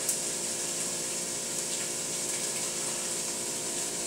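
Steady sizzling hiss of thin-sliced steak frying in a skillet, with a few faint crackles, over a low steady hum.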